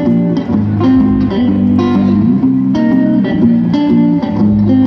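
Rockabilly band playing live: a plucked bass line repeating a short walking figure under guitar, with regular drum hits.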